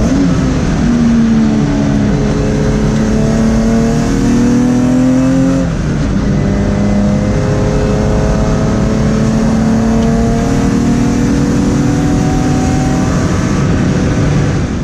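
BMW E36's M50/M52B30 inline-six on individual throttle bodies, pulling under load: the engine pitch climbs steadily, drops sharply at a gear change about six seconds in, then climbs again more slowly in the next gear.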